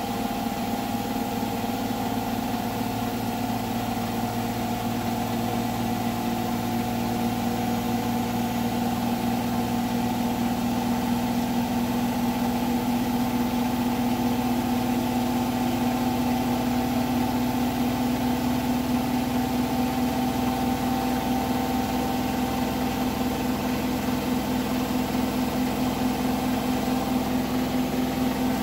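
Hotpoint washing machine drum and motor in a high-speed final spin, a steady whine that slowly rises in pitch and gets a little louder as the drum speeds up towards 1400 rpm.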